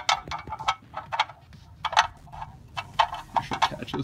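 A metal oil drain plug being spun by hand into the oil pan's threads, giving about a dozen irregular light clicks and ticks, the loudest around two and three seconds in.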